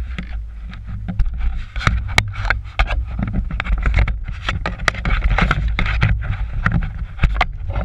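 Handling noise on the camera: close rubbing and many sharp knocks and clicks over a heavy low rumble, starting suddenly and stopping near the end.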